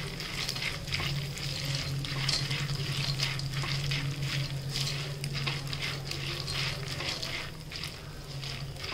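Peanuts, roasted split chickpeas and curry leaves sizzling in hot butter in a nonstick pan, stirred with a silicone spatula in repeated short scraping strokes. A steady low hum runs underneath.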